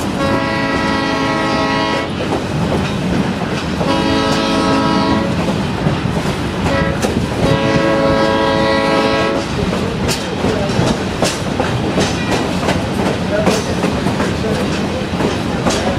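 Train horn sounding two long blasts, a short one and a long one, the standard grade-crossing signal, over the steady rumble of the moving train. After the horn stops, the wheels click repeatedly over rail joints.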